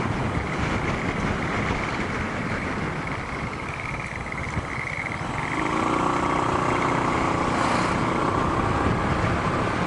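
Honda ADV150 scooter's single-cylinder engine running on the move, with wind and road rumble; about halfway through its tone settles into a steadier pitch.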